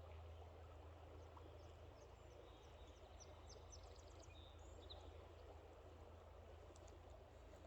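Near silence: faint outdoor ambience with a steady low hum, and a few faint high bird chirps about three seconds in.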